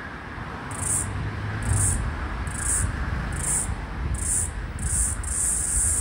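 Floury baker cicada (Aleeta curvicosta) calling: short high buzzing pulses a little under a second apart, which run together into one continuous high buzz about five seconds in. Low traffic rumble from a busy street underneath.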